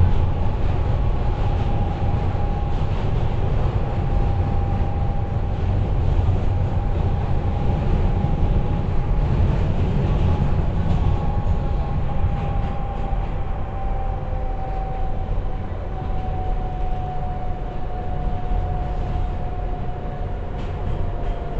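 New York subway car (N train) running on elevated track, heard from inside the car: a steady rumble of wheels on rail with a thin whine that sinks slowly in pitch, easing a little toward the end.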